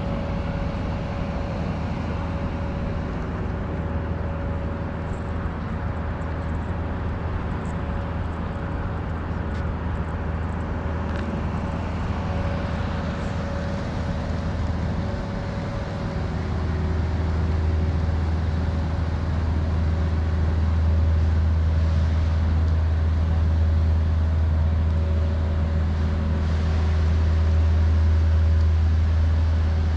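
Steady low rumble of motor vehicle engines with a constant hum, growing louder about halfway through.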